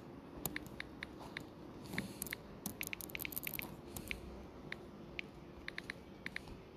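Faint, quick taps and clicks of fingertips typing on a phone's touchscreen keyboard, irregular and bunched up most thickly about two to four seconds in.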